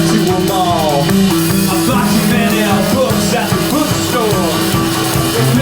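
Rock band playing a song live, loud and steady.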